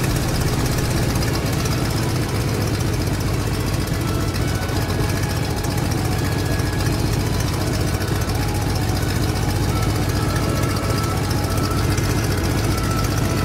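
Small electric gear motor spinning the propeller of a cardboard model biplane, running steadily with an even whir.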